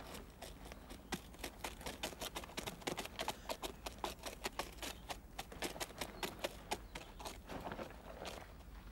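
Horse hooves clopping irregularly on hard ground, several light knocks a second.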